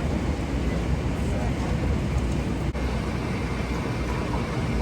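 Steady rumble and rushing noise of an airliner cabin in flight, heard from inside the plane.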